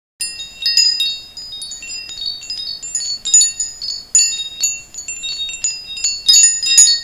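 Wind chimes tinkling: many quick, overlapping high metallic strikes at a handful of set pitches, ringing on without a break.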